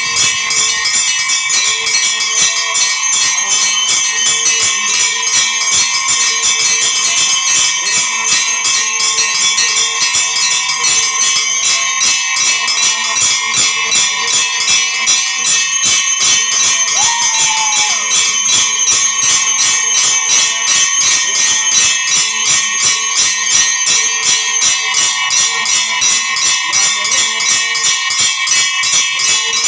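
Temple bells ringing continuously in fast, even strokes, several ringing notes sounding at once.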